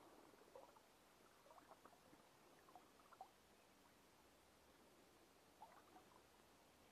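Near silence, with a few faint, brief ticks that come in small scattered clusters.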